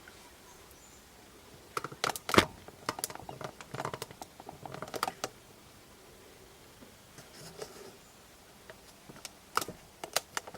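Irregular sharp clicks and taps of small hard objects being handled, in a busy cluster about two seconds in and again near the end.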